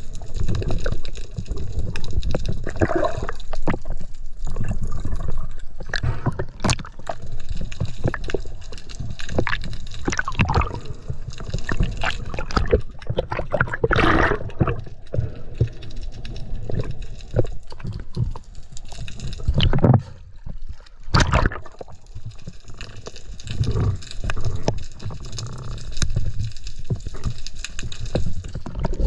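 Water gurgling and sloshing around an underwater camera, with a steady low rumble and scattered sharp clicks and knocks; the loudest bursts of rushing water come about a third and two-thirds of the way through.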